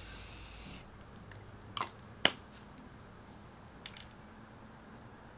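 Aerosol spray paint can spraying with a steady hiss that cuts off about a second in. A few sharp clicks follow, the loudest about two seconds in.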